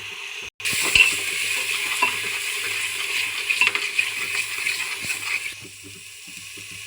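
Ground masala with red chilli sizzling loudly in hot oil in a pan while it is stirred, with small clicks and scrapes of the spoon; it starts abruptly after a brief silence about half a second in and quietens to a softer sizzle about five seconds in.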